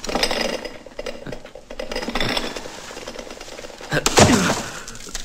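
A man's wordless cries and grunts over scuffling and knocks, with a loud, falling cry about four seconds in as he is thrown or falls.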